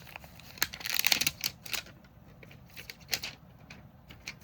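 Packaging being handled and opened by hand: a run of sharp crinkles and clicks, densest about a second in, then a few scattered clicks.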